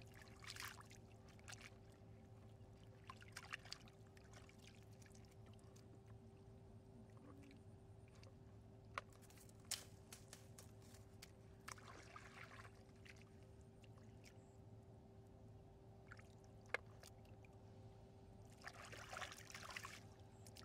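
Faint splashing and sloshing of shallow muddy water as hands and a woven basket scoop and grope through it, in a few short bouts, the strongest near the end. A few sharp clicks and a steady low hum sit underneath.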